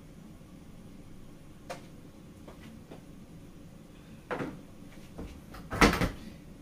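Kitchen handling sounds at a counter: a few light clicks, a brief rustle about four seconds in, then a single sharp knock near the end, the loudest sound.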